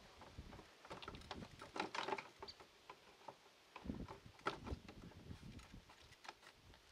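Faint, scattered clicks, scuffs and knocks of handling as a plastic RC truck body shell is pressed down onto its body posts, with a couple of small clusters of knocks partway through.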